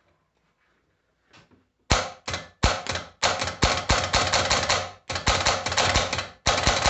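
Prestolite starter motor's solenoid chattering, a rapid clatter of clicks as power is touched to its terminal, the sign of a faulty solenoid. It starts about two seconds in and comes in several runs with short breaks.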